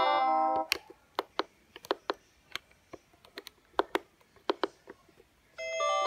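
A Vodafone Classic phone's built-in polyphonic ringtone plays through its small speaker and cuts off under a second in. Then comes a string of short, irregular keypad clicks as the menu is stepped through. Half a second before the end, a new message tone melody starts.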